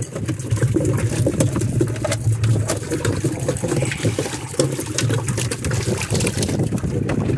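Several freshly caught cojinúa (blue runner), still on a multi-hook handline, flapping and splashing on a wet boat deck: a dense, irregular run of wet slaps and patters.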